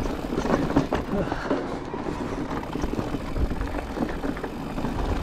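Orbea Wild electric mountain bike rolling down a rocky dirt trail: tyres crunching over gravel and stones with a steady clatter of small knocks and rattles from the bike, and wind rumbling on the microphone.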